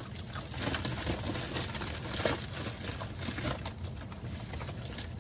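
Raw carrot being nibbled and chewed in quick small crunches, with scattered clicks and a light rustle of packaging.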